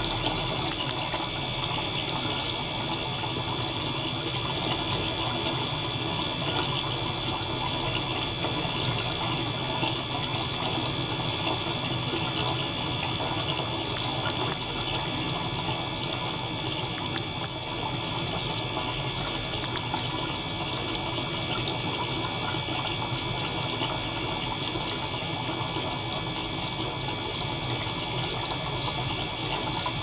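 Steady sound of water running in a degassing and microbubble circulation system: a thin stream falls from a tube into a water-filled tank while the circulation pump runs, with steady high tones over it.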